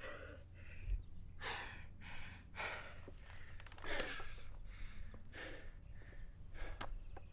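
A man breathing hard, with ragged gasping breaths in and out about every second to second and a half, as if out of breath or sobbing. A steady low wind rumble lies underneath.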